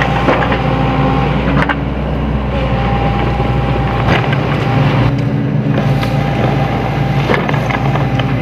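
Diesel engine of a Sany SY75C excavator running steadily while it works gravel, with a few sharp knocks from about two to seven seconds in.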